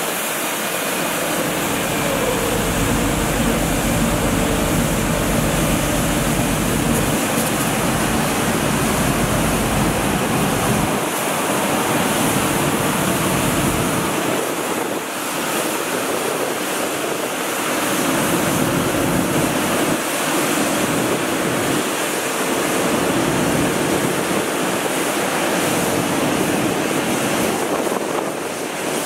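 Mercedes Arocs 1833 street sweeper at work: a loud, steady rushing from its suction blower, rotating brushes and water spray, with a steady whine running through it. Its low engine rumble drops away after about eleven seconds as the sweeper pulls away.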